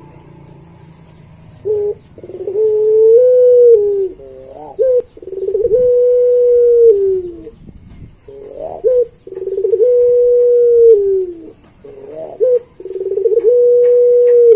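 Puter pelung, a Javanese breed of ringneck dove, cooing its long song again and again: four phrases, each a short stuttering note and then a long held coo that drops in pitch at the end.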